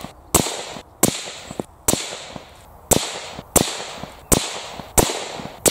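Suppressed 6.5 Creedmoor rifle shots from an Accuracy International AT-X: eight sharp cracks under a second apart, each with a short echoing tail.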